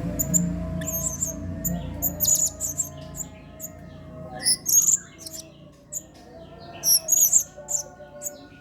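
Blue-crowned hanging parrot (serindit) calling: short, sharp, very high chirps in quick clusters of several notes, four or so clusters with pauses between them.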